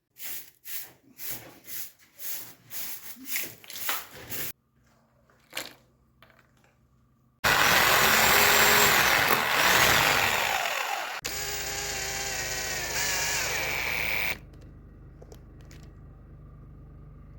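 Power tool work: about ten short rasping strokes, then an electric power tool running loud with its pitch shifting, settling into a steadier whine, and dropping to a quieter hum near the end.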